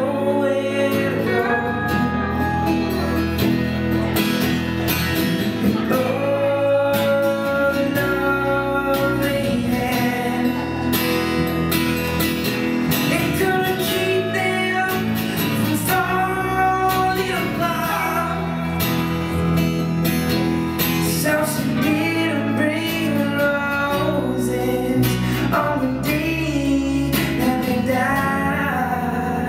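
Live acoustic band playing a song: a man sings lead over a strummed acoustic guitar and an electric bass guitar.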